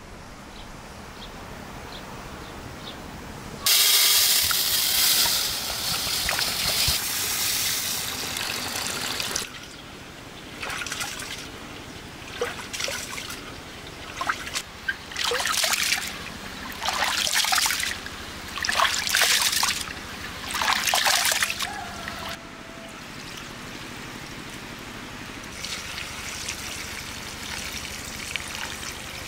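Rice being washed by hand in a metal basin of water. A long pour starts about four seconds in, then come repeated swishes every second or two as hands work the rice, and near the end the cloudy rinse water is poured out onto the ground.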